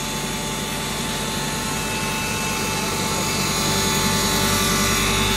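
10 HP double-chamber fine flour grinder (atta chakki) and its 1 HP blower running: a steady machine drone with a few steady whining tones, growing a little louder about three and a half seconds in.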